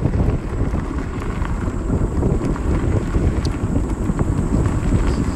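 Wind buffeting the microphone while riding along a gravel trail, a steady low rumble with scattered small ticks from the tyres on the gravel.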